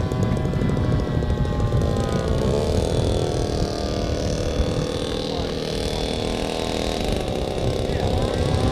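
Engine of a giant-scale radio-controlled Fokker D.VII model running at low throttle as it taxis on grass. Its pitch shifts as the throttle is worked, about two and a half seconds in and again near the end.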